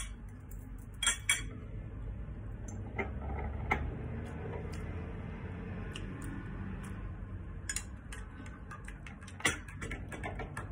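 A metal spoon clinking against a ceramic plate of food while eating, in scattered light clicks, over a low steady hum.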